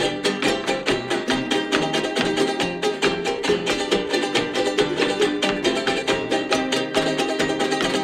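Son jarocho ensemble of jaranas and other small acoustic guitars playing an instrumental passage, with fast, even rhythmic strumming of several strokes a second under a picked melody line.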